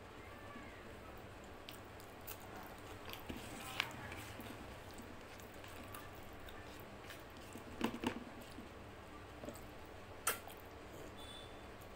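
Faint sounds of eating rice and mutton curry by hand: fingers mixing and squishing the rice on the plate, and chewing, with a few sharp wet clicks, about four seconds in, twice near eight seconds and once near ten seconds.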